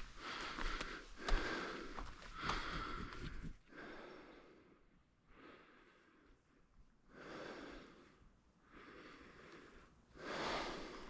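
A hiker breathing heavily, a slow series of long breaths about a second each, with footsteps on the trail in the first few seconds.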